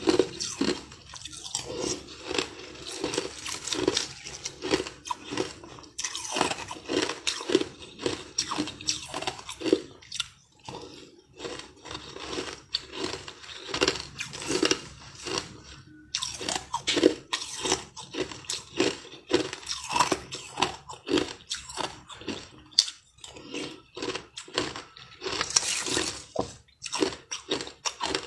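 Close-up crunching and chewing of chunks of blue-tinted ice, a dense run of crisp crunches several times a second, with short lulls between mouthfuls.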